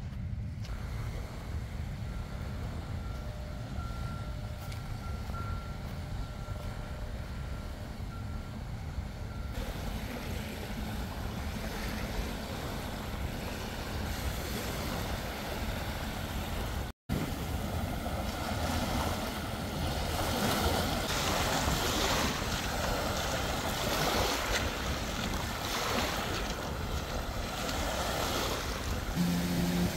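Outdoor ambience dominated by wind rumbling on the microphone, with a steadier hiss coming in from about ten seconds in. The sound cuts out completely for an instant about halfway through.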